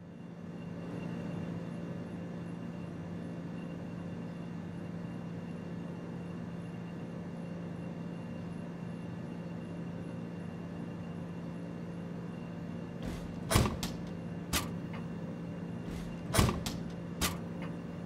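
Steady electrical hum of a refrigerated drinks vending machine, with a low, even tone. Several sharp knocks and clunks come about thirteen seconds in and again near the end, as items are handled at the machine.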